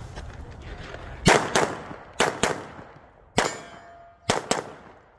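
Pistol shots fired in quick pairs on a competition stage, seven in all, with a metallic ring after some of them as steel targets are hit.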